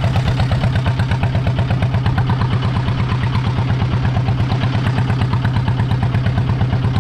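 Fishing boat's engine running steadily, a fast even pulsing beat of about six a second.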